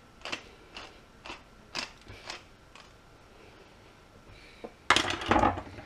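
Wooden pepper mill grinding peppercorns: a short crunchy crack about twice a second with each twist, then a louder clatter about five seconds in.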